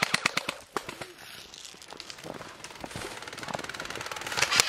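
Airsoft guns firing on full auto: a rapid burst of clattering shots that stops under a second in, sparser distant shots, then another fast burst starting near the end.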